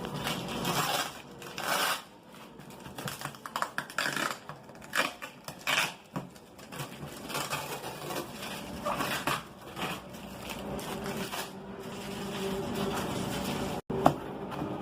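A microwave oven's cardboard box and packing being handled and opened: irregular scraping, rustling and knocking, turning to a steadier rubbing in the last few seconds, with one sharp knock near the end.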